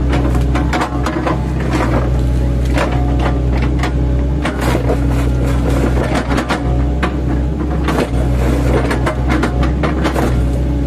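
8-ton mini excavator's engine running steadily while its bucket, fitted with chipping blades, chops oil palm trunks, with repeated irregular crunches and knocks.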